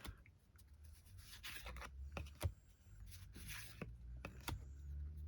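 Trading cards being handled and slid against each other: soft rustling and scraping with scattered light clicks, over a low steady hum.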